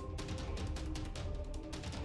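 Background music with a steady beat: drum hits over a strong bass line and held notes.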